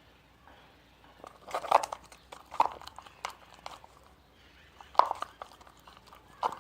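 Sticky, glue-based slime being stirred in a pot, giving irregular wet, crackly squelches and clicks. The slime has not set and stays runny. The loudest bursts come about a second and a half in and again near five seconds.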